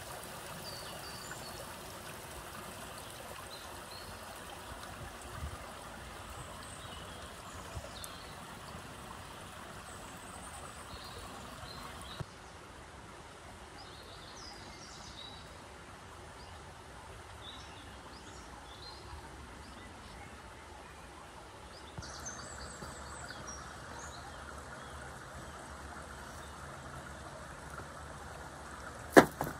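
Steady running water with small birds chirping over it. A single sharp knock sounds just before the end.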